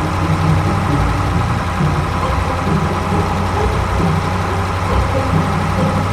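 A motor or engine running steadily at idle, with a low rumble that pulses slightly underneath a steady hum.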